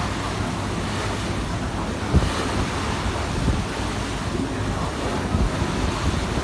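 Wind buffeting the microphone over the rush of water around a moving boat, with gusty low thumps, the sharpest about two seconds in.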